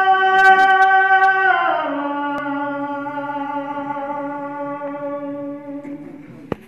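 A man's voice singing a Balti qasida, holding one long note, then sliding down to a lower note about a second and a half in and holding it until it fades near the end. A sharp click just before the end.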